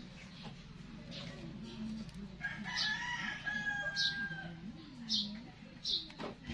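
A rooster crowing once, a single long call of about two seconds beginning a little over two seconds in, followed by a few short, high chirps.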